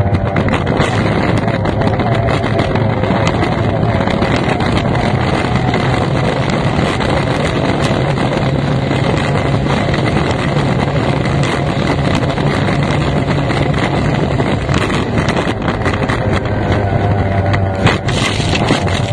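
Racing outboard engine of an F1 powerboat running hard at a steady pitch, heard from the cockpit. The pitch shifts briefly near the end.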